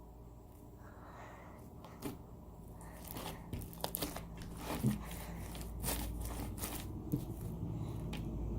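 Sticky homemade slime being worked by hand, giving irregular small clicks and sticky pops as it is rolled and pulled.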